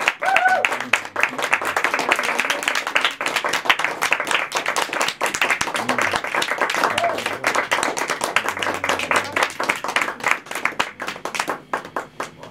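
Audience clapping and applauding, thinning to a few scattered claps near the end.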